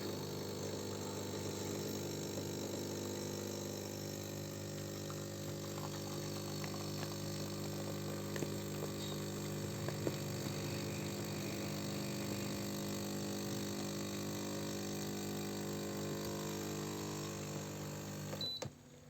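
Luwak LWK-CM315 coffee machine running, a steady low hum with buzzing overtones that starts suddenly and cuts off abruptly near the end.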